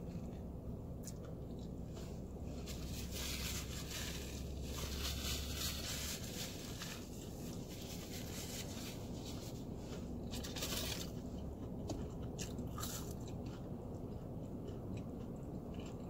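A person biting into and chewing a fried chicken sandwich close to the microphone, with crunching of the fried breading. The crunching is louder about three to six seconds in and again around ten to eleven seconds.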